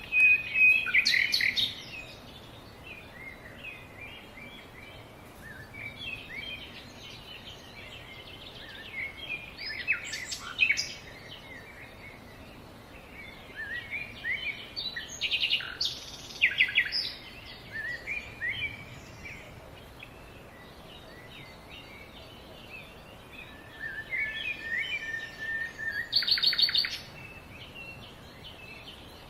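Small songbirds chirping and calling, with louder bursts of quick repeated notes every several seconds over a faint steady background hiss.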